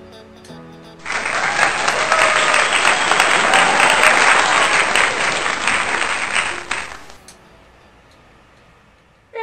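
Applause sound effect laid over soft background music. The clapping starts abruptly about a second in and fades out near the end.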